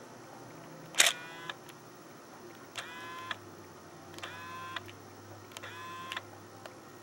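Nikon D80's mirror motor whirring in four short bursts, about one and a half seconds apart, each rising quickly in pitch and then holding steady, with a sharp click at the first. The motor spins without driving the mirror, which stays stuck partly up: the sign of a split gear on the mirror motor.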